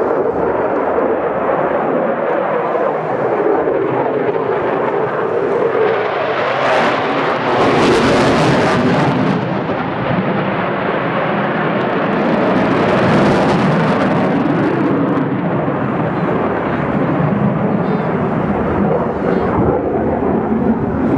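Eurofighter Typhoon's twin jet engines, heard as a continuous jet roar from a fast jet flying a display. It swells louder and hissier twice, about seven seconds in and again about thirteen seconds in.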